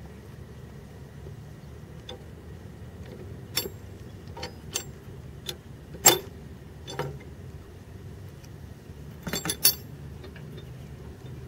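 Metal clanks and clinks from the rusty steel lever and latch of a hand-throw railroad switch stand as the lever is worked free and lifted. Separate sharp knocks come every second or so, the loudest about six seconds in, then a quick run of three or four near the end as the lever comes up.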